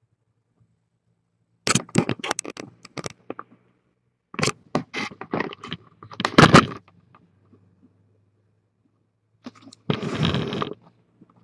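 Handling noise of the webcam being moved: two runs of close, loud clicks and scrapes, then a short rustling scrape near the end.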